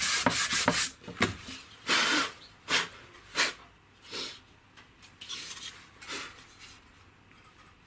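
Sandpaper rubbed back and forth by hand along the slats of a wooden frame, quick strokes that stop about a second in, followed by a few separate scrapes that grow fainter.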